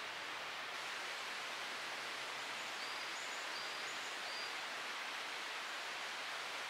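Steady outdoor background hiss in a forest, with a small bird giving three short high chirps about three to four and a half seconds in.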